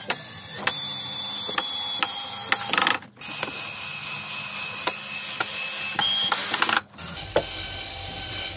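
Bosch 18V cordless drill running under load, boring a hole into a timber frame board with a steady motor whine. It stops briefly twice, about three seconds in and again about seven seconds in.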